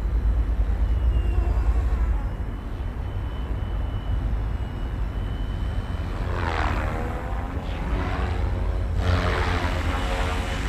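FlyWing FW450 V2 electric RC helicopter flying 3D manoeuvres: its rotor and motor whine, with a thin steady high tone, sweeps down and back up in pitch twice, about six and nine seconds in. A low rumble runs underneath.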